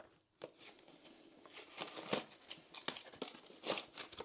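Plastic packaging of a boxed set of pre-painted miniatures crinkling and crackling, with sharp clicks, as it is opened and the figures are pulled out of their tray.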